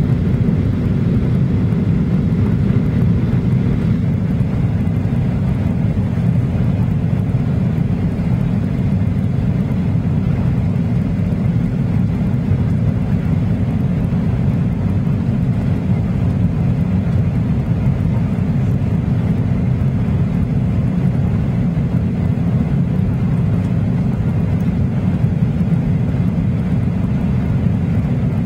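Steady low drone of a Boeing 737-800's cabin in flight, engine and airflow noise during the descent to land.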